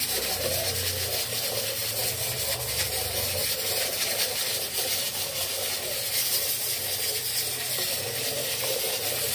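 A steel ladle stirring custard into hot milk in a steel pot, over a steady hiss.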